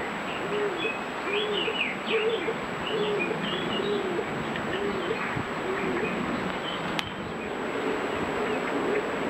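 A pigeon cooing in a steady run of low, evenly spaced coos, with a small bird chirping over it during the first couple of seconds. A single sharp click comes about seven seconds in.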